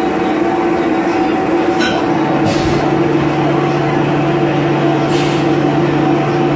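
XYZ 560HD CNC vertical machining centre running loudly with a steady mechanical whine from its motors and coolant. A lower hum comes in a little after two seconds, and there are three short hisses, at about two, two and a half and five seconds in.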